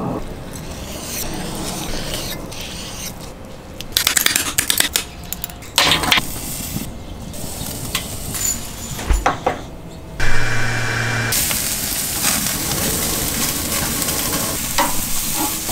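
Cooking sounds in short cuts: a few clusters of clinks and knocks from handling the meat, then a steady sizzle from flank steak pinwheels searing on the hot grate of a charcoal kamado grill through the second half.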